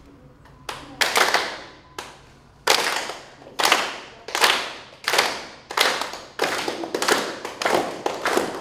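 A group of about thirty young singers clapping together, about a dozen loose group claps, each fading briefly in the room. They come irregularly at first, then in a steady beat that gets a little faster toward the end.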